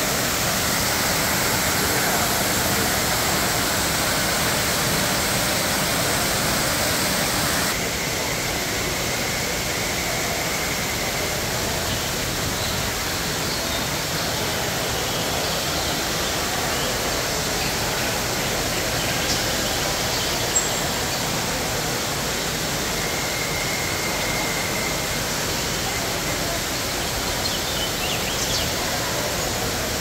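Steady rush of falling water from a water feature, dropping slightly in level about eight seconds in.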